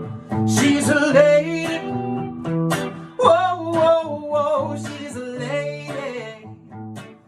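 Acoustic guitar music, plucked and strummed, with a wordless sung melody over it that wavers in pitch; it fades at the very end.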